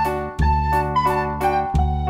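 Light instrumental background music: an even run of notes, about three a second, over held bass notes that change every second or so.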